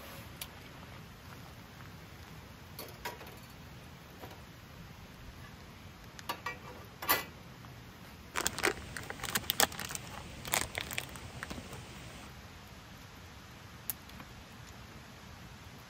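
Oil crackling and popping on hot cast-iron plates heating on a camp stove, in a dense cluster of pops for about three seconds in the middle. A few scattered clicks and knocks come before it.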